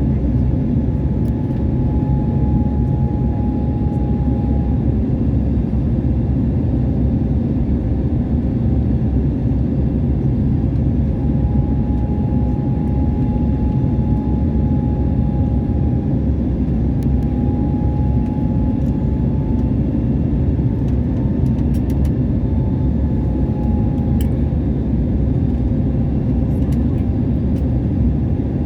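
Steady engine and airflow noise of a jet airliner heard inside the passenger cabin, with a faint whine that drifts slightly up and down in pitch.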